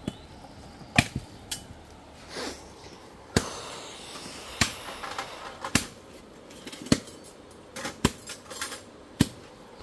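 Sharp, irregular knocks and clacks, about one a second, of kitchenware and utensils being handled and set down on a table.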